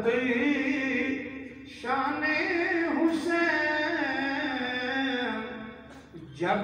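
Unaccompanied devotional chanting by men's voices, sung in long phrases with wavering held notes, breaking off briefly about two seconds in and again near the end.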